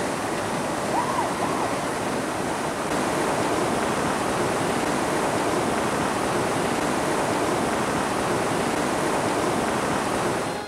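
River rapids rushing: a steady roar of white water around a paddled raft.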